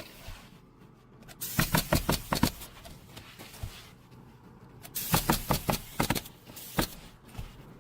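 Rapid sharp knocks in two bursts of about a second each, with a couple of single knocks near the end.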